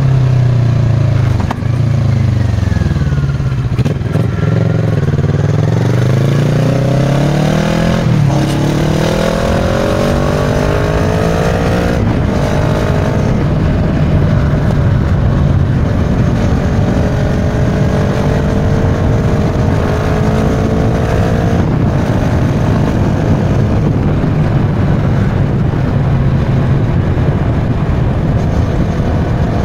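Kawasaki Versys 650 parallel-twin engine running through a Giannelli aftermarket exhaust while riding. The revs fall at first, then climb in a few rising pulls, each cut short by a gear change, before the engine settles into a steady cruise.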